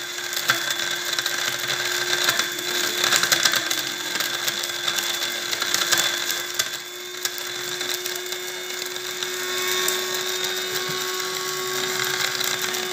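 Small electric blade grinder running steadily, chopping dried orange peel into powder, with the rattle of the hard peel pieces against the blades and bowl, busiest in the first half.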